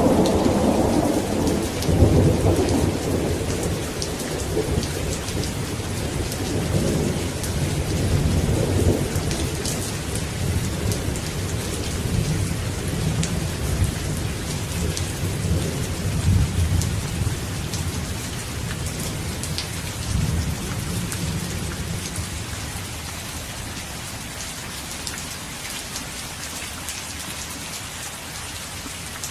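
Steady rain falling in a thunderstorm, with a long rolling rumble of thunder through the first part that dies away, leaving the rain alone near the end.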